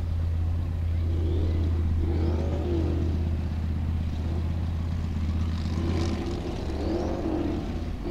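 A Formula Offroad buggy's engine revving up and down again and again under load as the car climbs a steep dirt slope, over a steady low drone.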